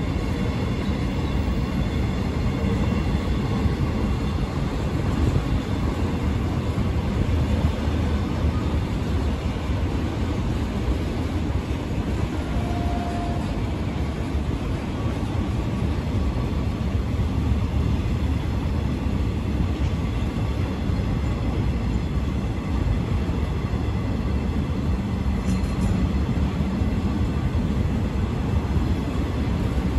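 Freight wagons loaded with containers and tank containers rolling past on the rails: a steady low rumble of wheels and running gear that keeps on unchanged as the long train goes by.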